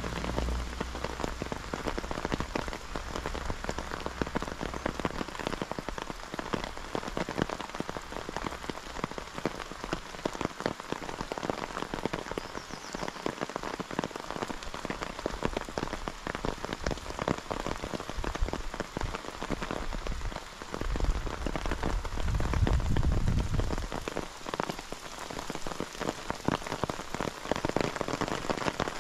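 Steady rain, with a dense patter of drops striking a nearby surface. A low rumble swells and fades about three quarters of the way through.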